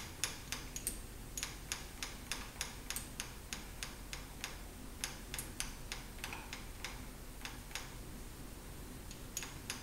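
Cross-slide rotary table handwheel being cranked by hand with its drive re-engaged, giving a run of light, sharp metallic clicks about three or four a second.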